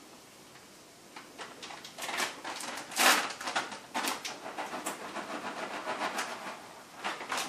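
Plastic bag of shredded cheddar cheese crinkling and rustling as it is handled and the cheese is tipped out into a mixing bowl. The rustling starts about a second in and goes on irregularly, with one louder crinkle near three seconds in.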